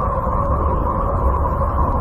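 Space electromagnetic-wave recording converted into sound and presented as the sound of Uranus: a steady low rumble under a held, unchanging tone.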